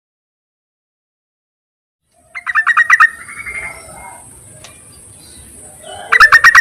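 Female yellow-vented bulbul calling for a male. There is a fast, bubbly run of about eight notes a couple of seconds in, then softer chattering over a steady high hiss, and another loud run near the end.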